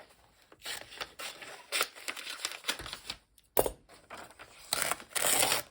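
Paper rustling as a catalogue's pages are handled, with a sharp click a little past halfway and a longer rustle near the end.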